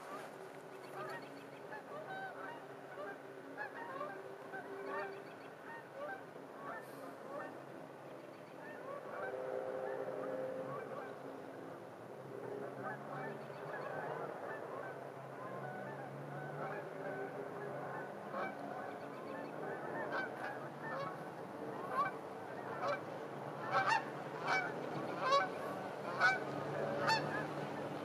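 A flock of geese honking over and over, with louder, sharper honks in the last few seconds.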